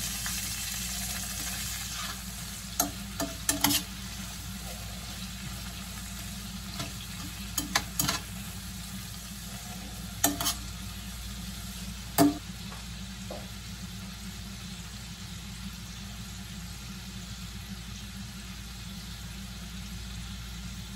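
Bell pepper strips sizzling steadily as they sauté in oil in a stainless steel skillet. Metal tongs click against the pan several times as the peppers are stirred and turned.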